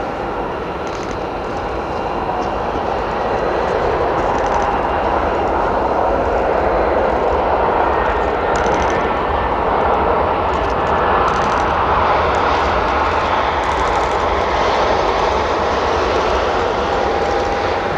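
Boeing 737-8 MAX's CFM LEAP-1B turbofan engines running during the landing rollout: a steady jet roar that swells about three seconds in and then holds.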